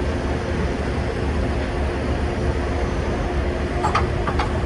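Steady low mechanical hum, like a motor or engine running, with two short sharp clicks near the end.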